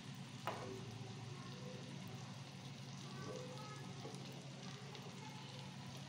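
Grated ginger, crushed black pepper, cloves and turmeric frying in a little ghee in a small pan, with a faint, steady sizzle. A single sharp tap about half a second in.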